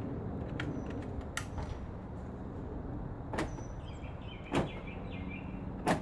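Several sharp clicks, the two loudest and heaviest about four and a half and six seconds in: the Lexus GX470 driver's door lock actuator, fitted with a new DC motor, cycling as the master switch is pressed. The clunks are the sign that the repaired actuator is working.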